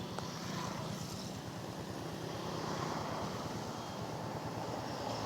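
A motor vehicle's engine running with road noise, swelling toward the end as traffic goes by.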